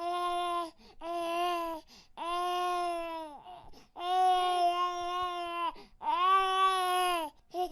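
Baby crying in a series of about five long wails, each held on one pitch and dropping off at the end, with short breaths between.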